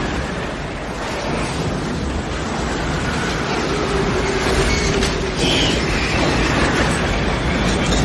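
Tornado-force wind blowing hard with a deep, steady rumble, with a faint whistling tone coming through briefly in the middle.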